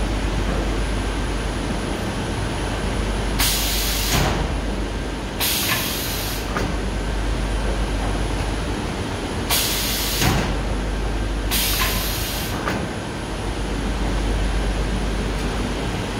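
Automatic shrink-wrap packaging machine running steadily, with the pneumatic cylinders of its film-sealing bar venting compressed air in sharp hisses. The hisses come as two pairs, each pair about two seconds apart, the second pair about six seconds after the first, as the bar cycles on successive box stacks.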